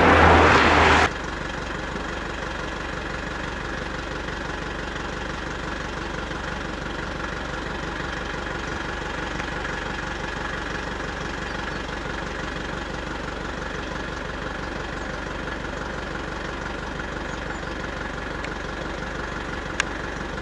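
A car engine idling steadily. A loud rush of noise at the start cuts off suddenly about a second in, and there is a single sharp click near the end.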